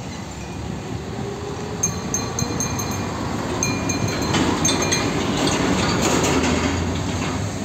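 Heavy diesel truck running past as it pulls an empty flatbed container semi-trailer, the bare trailer frame rattling and clanking. It gets louder as the rig passes, and a bout of quick metallic clatter runs through the middle.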